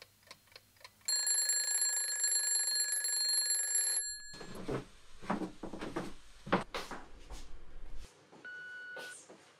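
Twin-bell alarm clock: a few faint ticks, then a loud steady ringing for about three and a half seconds that cuts off suddenly. Afterwards light household clatter and a short electronic beep near the end.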